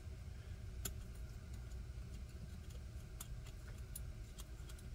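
Faint, scattered light clicks and ticks of small metal knife parts being handled and fitted together: a Hogue Deka folding knife's D-shaped pivot being worked into place between the scales.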